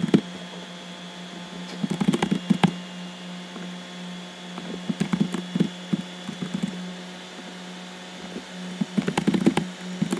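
Typing on a computer keyboard in three short bursts of rapid key clicks, over a steady low electrical hum.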